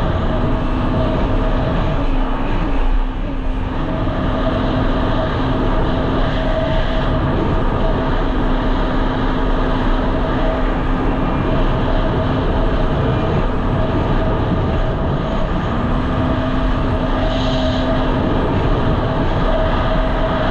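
Jet ski engine running steadily at speed, a constant drone with a rushing noise over it; it eases off briefly about three seconds in, then carries on.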